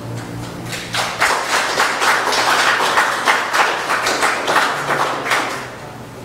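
Small congregation applauding: a few seconds of scattered hand claps that build about a second in and die away near the end.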